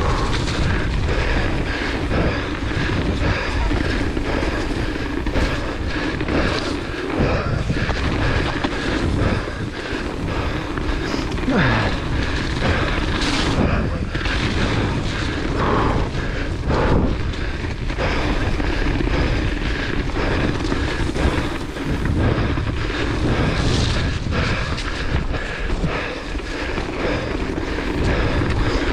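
Wind rushing over the action camera's microphone as a hardtail mountain bike descends a dirt trail at speed, with tyre noise on the dirt and repeated knocks and rattles from the bike over bumps.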